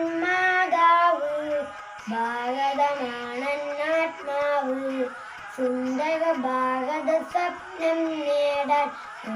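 A boy singing a song alone, without accompaniment, in phrases of held notes with short pauses between them.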